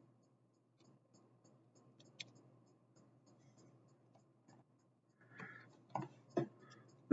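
Faint clicks and rubbing of small plastic action-figure parts being handled, with a sharper click about two seconds in and a few louder knocks near the end.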